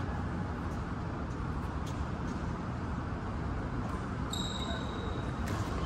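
Badminton rally in a sports hall: faint racket-on-shuttlecock hits and footfalls over a steady low hum, with a short high sneaker squeak on the court floor about four seconds in.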